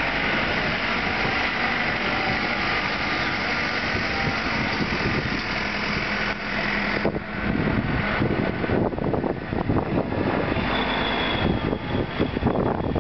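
JCB 3CX backhoe loader's diesel engine running as the machine drives across soft ground. Steady at first, it turns rougher and more uneven about halfway through, and a thin high whine joins in over the last few seconds.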